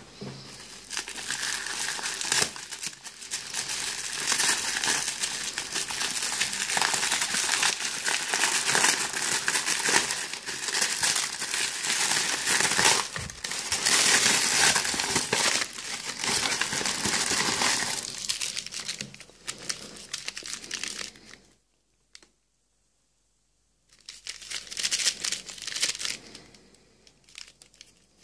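Thin red wrapping paper and brown paper around a pack of firecrackers being torn open and crumpled by hand, a continuous crinkling and tearing. It stops for about two seconds about three-quarters of the way through, then starts again briefly.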